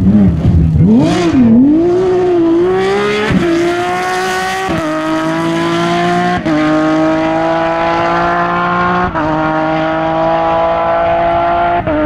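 Porsche 997 GT3 rally car's flat-six engine at racing revs: the note wavers through a corner, then the car accelerates away hard, shifting up five times, each shift a sudden drop in pitch followed by a slow rise.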